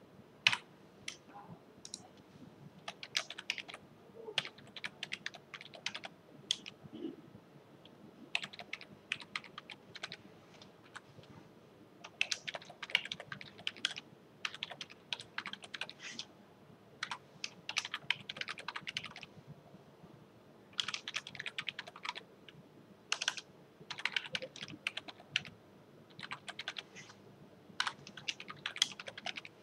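Typing on a computer keyboard: quick runs of keystrokes separated by short pauses.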